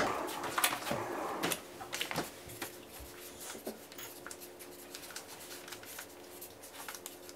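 Paper-wrapped meat packages being handled, with clicks and rustles in the first couple of seconds, then the faint scratching of a felt-tip permanent marker writing on waxed freezer paper.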